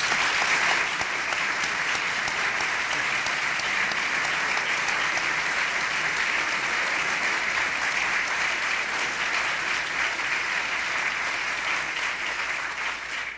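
A large audience applauding: dense, steady clapping that holds for about thirteen seconds and dies away at the end.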